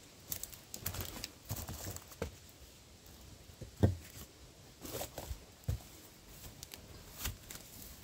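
Irregular crackles and crunches like dry leaf litter and twigs being crushed, with one louder thump about four seconds in.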